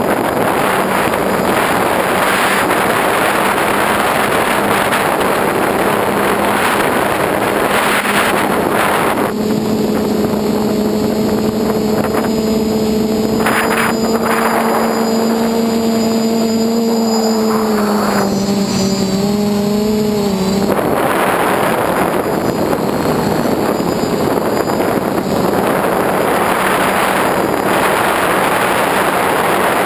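FPV model aircraft in flight, heard through its onboard camera microphone: wind rushing steadily over the mic over a constant hum from its motor and propellers. For about ten seconds midway the wind rush drops away and the motor hum comes through clearly, wavering in pitch before the rush returns.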